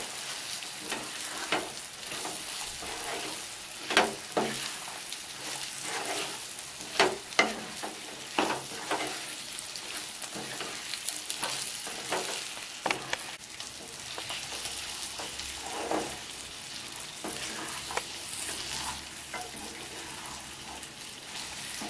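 Potatoes and green peas frying in spiced oil in a pot, with a steady sizzle, while a spatula stirs them and scrapes and knocks against the pot at irregular moments, loudest about 4 and 7 seconds in.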